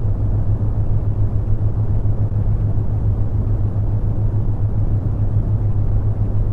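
Brown noise: a steady deep hiss, strongest in the low end, with a constant low hum near 100 Hz from the theta-wave tone layered under it.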